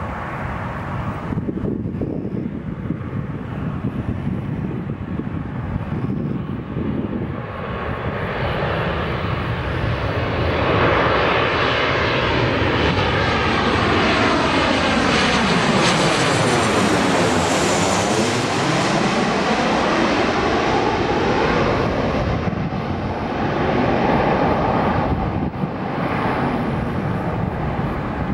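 Boeing 737-800 jet engines on landing approach, growing louder as the airliner flies low overhead. About halfway through, a whooshing sweep falls and then rises in pitch as it passes. The sound then eases off a little as the jet descends toward the runway.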